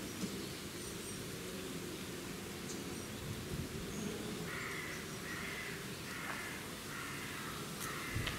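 An animal calling in a series of short, evenly spaced calls, about one every 0.7 seconds, starting about halfway through, over a steady background hiss.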